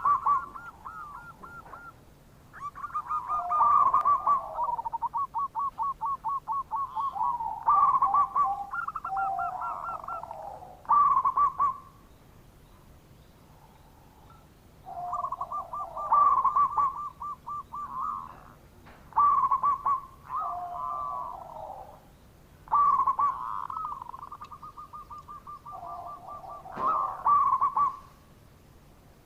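Zebra dove (perkutut) calling: repeated phrases of rapid staccato cooing notes, each phrase a second or two long, with short pauses between them.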